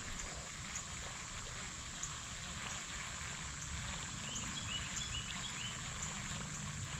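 Creek ambience: a steady rush of flowing water with short high chirps repeating about once a second, and a few brief bird or insect calls about four to five seconds in.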